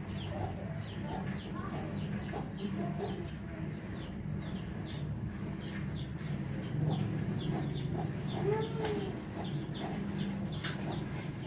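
Young chicken peeping steadily: short, high, falling peeps, about two to three a second, over a low hum.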